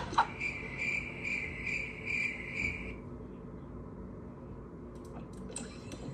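A high chirping sound from a video clip, repeating steadily about twice a second for roughly three seconds and then stopping, heard through a tablet's small speaker; a few faint clicks near the end.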